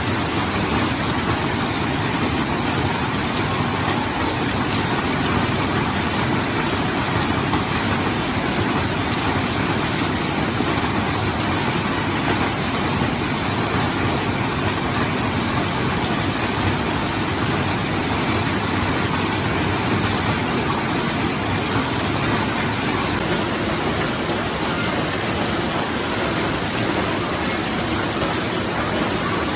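Heavy monsoon rain pouring down: a steady, even hiss of rain with no let-up.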